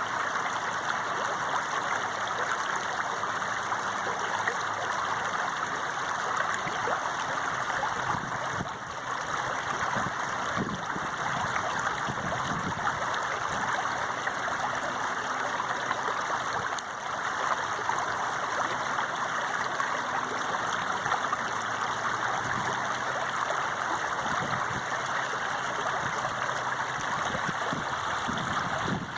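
Flowing water running steadily, a continuous rushing noise without pause.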